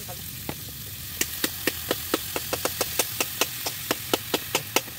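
Meat sizzling in oil in a frying pan on a portable gas stove. From about a second in, a fast, regular series of sharp knocks, about five a second, sounds over the sizzling and is the loudest thing heard.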